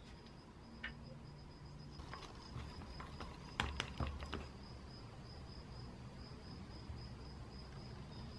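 Wooden stick stirring two-part epoxy resin in a small plastic cup: faint scraping with a few light clicks against the cup, mostly in the middle. A faint steady high-pitched tone, pulsing slightly, runs underneath.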